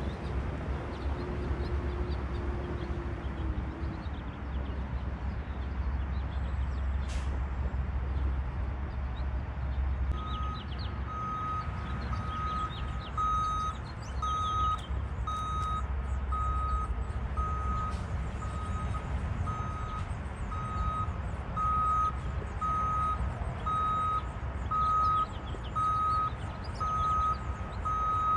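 Diesel engine of heavy paving equipment running with a low rumble; about ten seconds in, a backup alarm starts beeping about once a second as a machine reverses.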